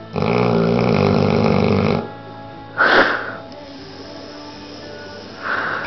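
American bulldog snoring in its sleep: one loud, pitched snore lasting about two seconds, then two short breaths, at about three seconds and near the end.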